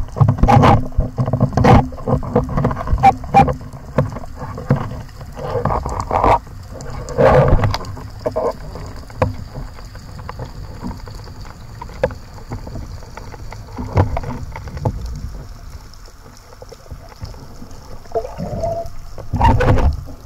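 Underwater handling noise from a freediving spearfisherman's speargun and gear: irregular knocks and bumps over rushing water noise. The knocks come thickest in the first several seconds, ease off in the middle, and pick up again near the end.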